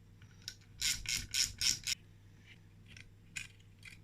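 Socket ratchet clicking in a quick run of five short rasping strokes about a second in, followed by a few lighter metallic clicks, as the clutch spring bolts are undone on a two-stroke motorcycle engine.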